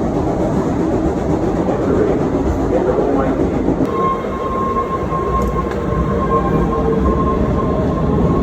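MBTA Red Line subway train running between stations, heard from inside the car: a steady rumble of wheels on rails. About halfway through, a steady high whine comes in and holds.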